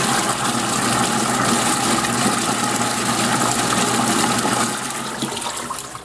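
Manatee mini portable washing machine running its wash cycle: the impeller churns the water in the tub with a steady sloshing rush over a low motor hum. The sound dies down near the end as the agitation slows.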